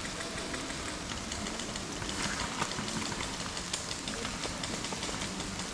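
Rain falling, with many small irregular drops pattering close by.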